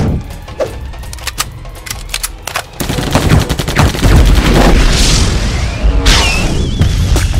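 Gunfight sound effects: a rapid volley of gunshots from several guns firing at once, sparse at first, then dense and louder from about three seconds in, with music underneath.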